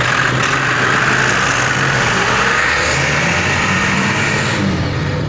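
Diesel engine of a light truck running as the truck pulls away under the load of a combine harvester, with a steady low engine note.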